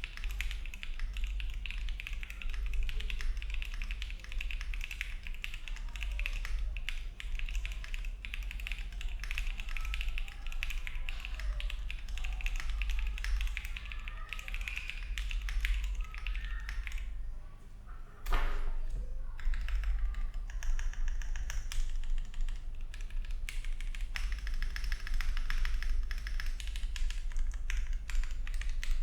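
Typing on a Luminkey65 mechanical keyboard with Gateron Summertime switches, an unfoamed polycarbonate plate and ABS keycaps: a fast, continuous run of key clacks. There is a brief pause about 17 seconds in, followed by one louder stroke.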